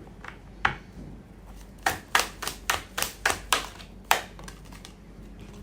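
Tarot cards being handled and laid down on a table: a few single taps, then a quick run of about ten sharp card snaps between two and four seconds in.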